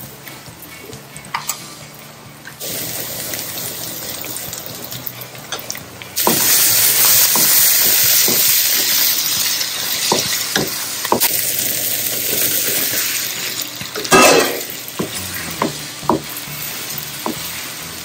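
Chopped onions frying in oil in a non-stick kadai, sizzling, while a wooden spatula stirs and knocks against the pan. The sizzle grows sharply louder about six seconds in.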